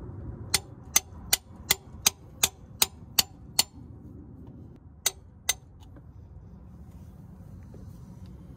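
A hammer striking a nail punch to pierce a spin-on oil filter so it drains before removal. There are nine sharp taps at about three a second, then a short pause and two more.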